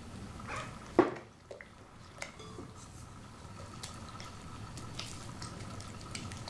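Silicone spatula stirring flour into a wet yeast mixture in a glass bowl: soft wet squishing and scraping as the batter comes together. One sharp clink of glass about a second in, with a few lighter taps after it.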